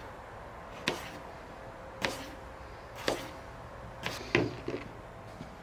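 Kitchen knife slicing a potato thin on a plastic cutting board, each cut ending in a sharp tap on the board, about once a second, with two taps close together a little past four seconds in.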